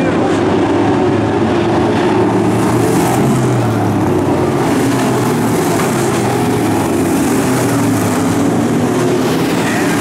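A field of pro stock dirt-track cars racing in a pack, their V8 engines running together in a loud, steady drone.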